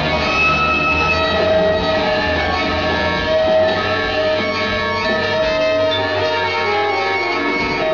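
Live large-ensemble jazz: saxophones among many instruments holding long, overlapping notes. A low bass drone sits underneath and drops out about three-quarters of the way through.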